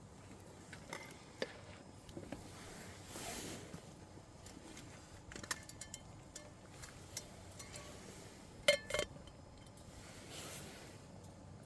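Light clinks and taps of metal cookware and utensils being handled, scattered through, with a louder double clink about nine seconds in.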